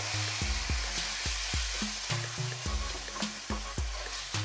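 Background music with short repeating low notes, over the steady sizzle of marinated chicken pieces frying in oil in a pan.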